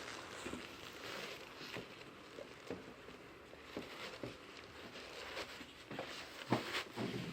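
Handling noise from a folding chair being reassembled: scattered light knocks and clicks with rustling, louder a couple of times near the end.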